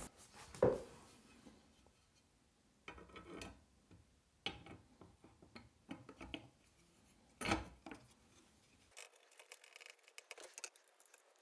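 Glass pane being handled and set down over plastic spacers and bolts on a clock face: scattered light clicks and knocks of glass on plastic, the loudest about seven and a half seconds in, with a few faint scratchy clicks near the end.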